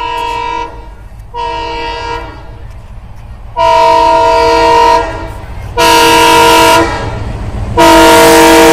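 Multi-tone air horn of an approaching ALCO WDM3D diesel locomotive sounding five blasts: two short, fainter ones, then three louder ones of about a second each, the last running on to the end. A low rumble of the approaching train lies under the horn.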